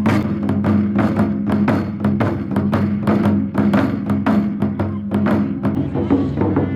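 Music with a quick, even beat of sharp percussive strikes, about four a second, over a steady low sustained note.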